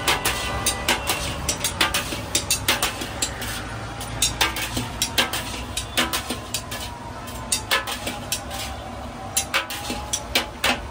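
Metal ladle and spatula scraping and clanking against a large iron wok as egg rice is stirred and tossed: irregular sharp clanks, about two or three a second, over a low steady rumble.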